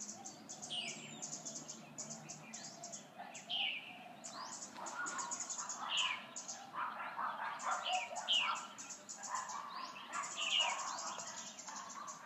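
Several birds calling and chirping together, among them a short call that slides down in pitch, repeated about once a second.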